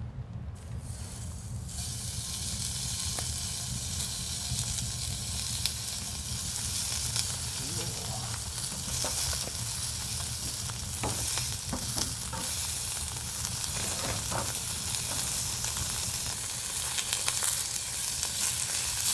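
Wagyu beef sizzling as it cooks on a very hot surface: a steady frying hiss with scattered crackles. The hiss sets in about a second in and grows slightly louder.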